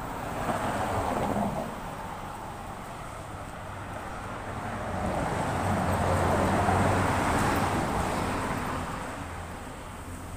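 Street traffic passing: a brief swell of tyre and engine noise about half a second in, then a louder vehicle going by, rising from about halfway, loudest a little after that and fading near the end.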